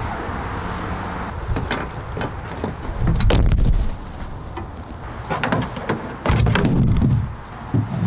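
Strong wind buffeting the microphone, with two heavy low rumbles about three and six seconds in, over scattered clicks, knocks and rustling from tent fabric and camping gear being handled.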